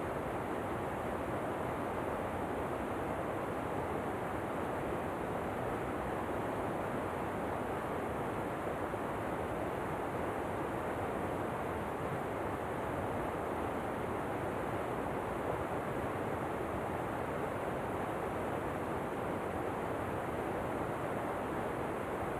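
Steady, even rush of falling water from a waterfall, with no changes or separate events.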